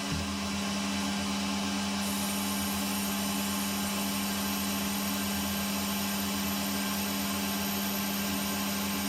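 Machine tool running steadily with a constant hum while a boring bar is run through a hole in a metal part to open it up. A faint high whine joins about two seconds in.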